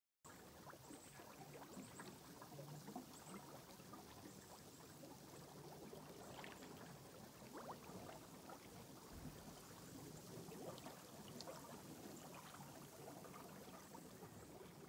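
Faint outdoor ambience: a low steady hiss with many small scattered ticks and clicks, and a few short high chirps in the first few seconds.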